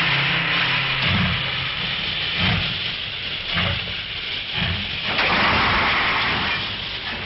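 Steam locomotive hissing steam steadily, with slow chuffs about once a second.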